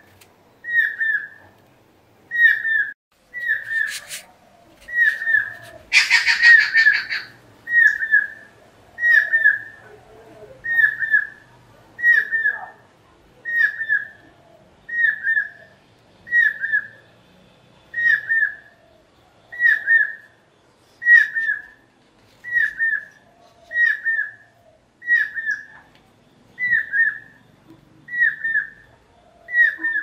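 Stork-billed kingfisher calling: a loud whistled note, falling slightly in pitch, repeated evenly about every one and a half seconds. A brief harsher, rasping burst comes about six seconds in.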